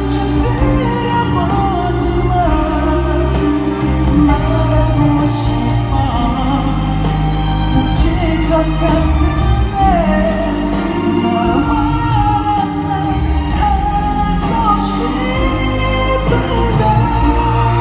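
A male singer singing a pop ballad live into a microphone over a full band backing, with a steady drum beat.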